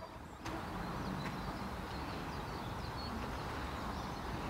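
Faint short high chirps of small birds over a steady hiss of background noise. The noise comes in suddenly about half a second in.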